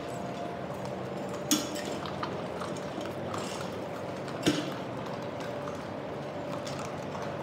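Black Labrador puppies feeding on a concrete kennel floor: small ticks and scuffs of paws and kibble over a steady background noise, with two sharp knocks, one about a second and a half in and one about four and a half seconds in.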